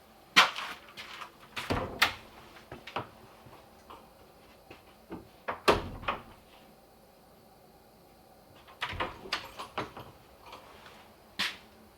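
Scattered knocks and clunks from objects being handled or moved, about half a dozen sharp ones with a quiet stretch in the middle.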